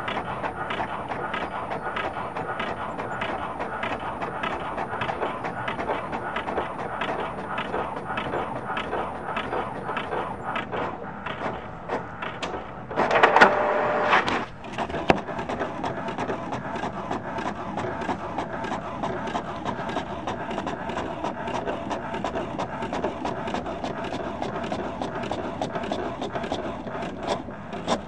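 Paper printer running, a steady rapid clatter of small clicks. A louder stretch of a second or so comes about halfway through.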